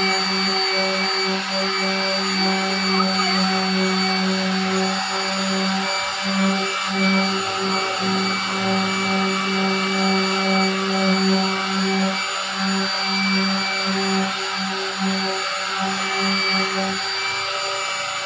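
Corded electric palm sander running steadily while sanding dried body filler on a car door: a continuous motor hum over the rough hiss of sandpaper on filler, the hum dipping briefly now and then as the pad is pressed and shifted.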